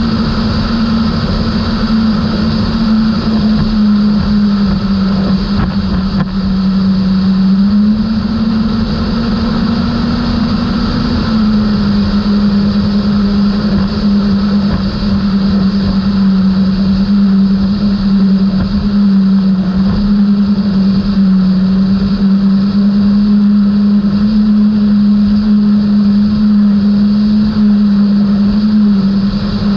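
Outboard motors of a 32-foot Skater catamaran running at speed: a steady engine note that shifts slightly up and down in pitch a few times, over a rush of wind noise.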